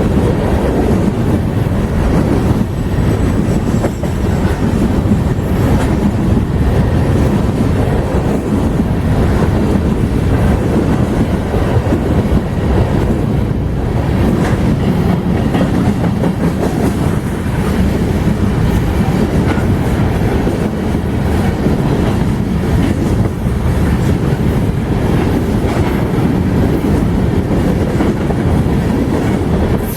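Freight train rolling past, its cars' wheels clattering steadily over the rails.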